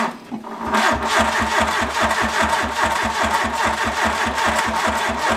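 A VW Golf II's starter motor cranking the engine: a click as the starter engages, then about five seconds of steady, rhythmic turning over at roughly five to six beats a second, without the engine catching. The engine turns over only slowly, which the crew puts down to a battery too weak for the starter.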